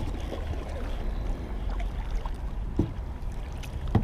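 Kayak being paddled along a creek: paddle strokes in the water with a few short knocks, over a steady low rumble.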